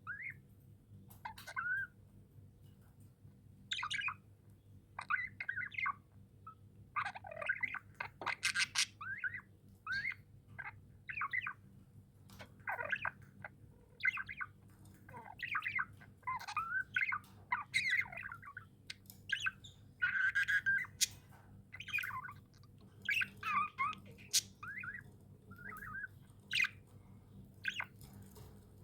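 Pet budgerigars chirping and squawking in short, scattered calls and warbles throughout.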